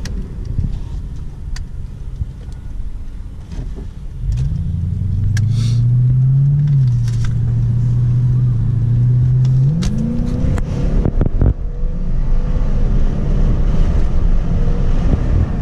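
Lexus GS400's V8 running through a muffler-delete exhaust while the car is driven, over steady low rumble. The engine note climbs about four seconds in, holds, and climbs again near ten seconds before sinking back into the rumble.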